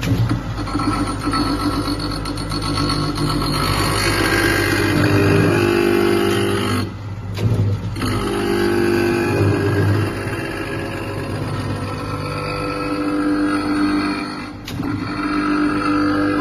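Blade-sharpening machine's motor-driven grinding wheel running and grinding along a long flat steel blade, a steady grinding over the motor's hum that shifts in pitch as it goes. The sound drops briefly twice, about seven and fifteen seconds in.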